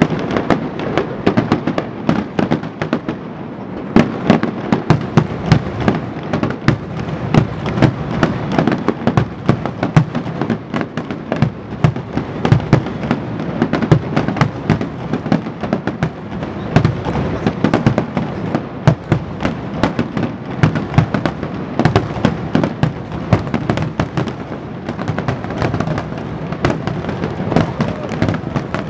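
Aerial fireworks shells bursting in a dense, continuous barrage of overlapping bangs, several a second, over a steady rumble.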